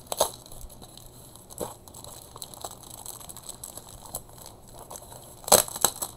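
Folded cardboard packaging and a clear plastic sleeve being handled and opened: quiet rustling with a few sharp crinkles, loudest in a cluster near the end.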